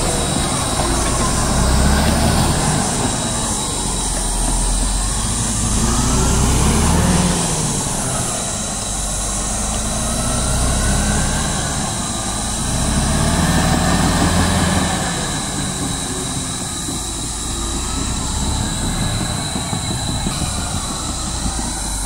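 CAT D7R crawler bulldozer's diesel engine working under load as it pushes earth and felled trees, its pitch rising and falling several times as the load changes.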